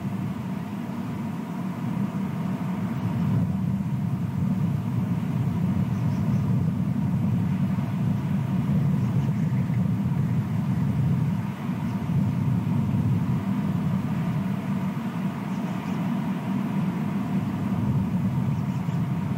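Steady low rumble of outdoor background noise on the nest camera's microphone, with a faint thin hum above it.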